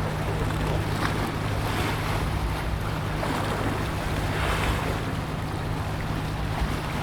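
Water washing and wind buffeting the microphone, the wash swelling every second or so, over a steady low engine drone.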